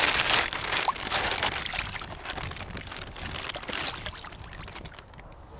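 Footsteps splashing through shallow water and mud, loudest at first and fading toward the end.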